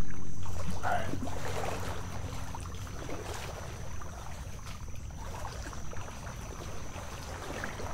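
Water sloshing and swishing around a wader's legs as he wades through a shallow mangrove creek, in small irregular splashes. A faint steady high tone runs throughout, and a low hum fades out about three seconds in.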